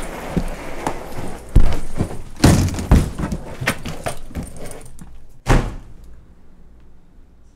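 A rapid run of loud thumps and knocks over rustling. The hardest hits come about one and a half, two and a half and three seconds in, with a last one about five and a half seconds in, and then it dies down.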